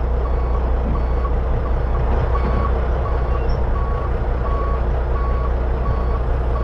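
Heavy truck's reversing beeper sounding in a steady run of short beeps, a little under two a second, over the prime mover's diesel engine running at idle while it reverses under a road-train dolly.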